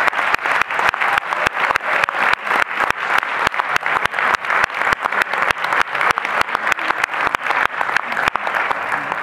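Audience applauding, with one pair of hands clapping loudly close by at about five claps a second over the steady applause of the crowd.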